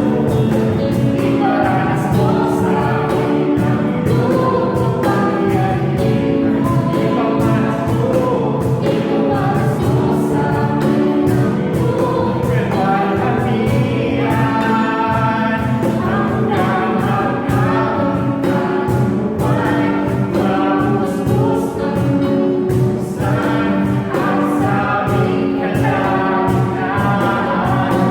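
Contemporary Christian worship song: a group of voices singing over a band with a steady drum beat.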